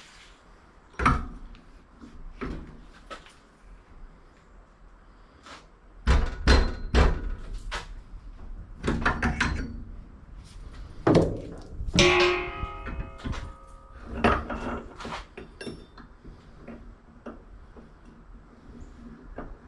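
Pieces of scrap brass and copper being handled and set or tossed down: a string of irregular knocks and clanks, with one ringing metallic clang about twelve seconds in.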